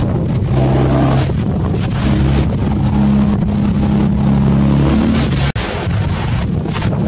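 Wind buffeting the microphone on a moving cruise ship's deck, with a steady low drone underneath from about half a second in. Near the end the sound cuts out for an instant and the wind noise carries on.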